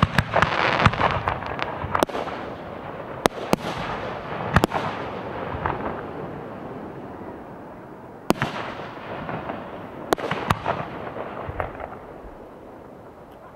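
Professional 1.3G aerial firework shells bursting: about ten sharp reports in two clusters, one in the first few seconds and another about eight seconds in. Each report is followed by a fading rush of noise, and it tails off to quieter sound near the end.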